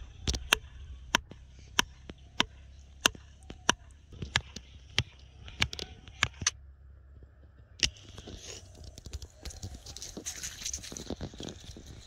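Wooden mallet pounding a rope-wrapped wooden stake into a riverbank: a dozen or so sharp knocks, about two a second, for some six seconds. One more knock near eight seconds, followed by irregular rustling and crackling.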